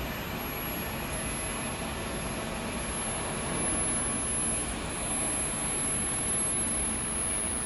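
A 100 kg aluminium melting furnace running under power: a steady rushing machine noise with a thin, high-pitched whine held over it.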